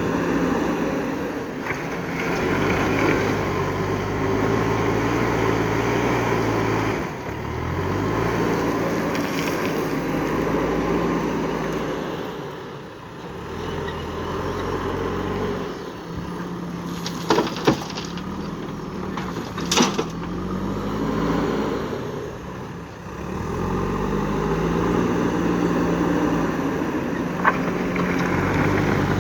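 JCB 3DX backhoe loader's diesel engine running under load, its revs repeatedly dropping and climbing again as the machine works through its loading cycles. A few sharp metallic clanks stand out, two close together around the middle and one near the end.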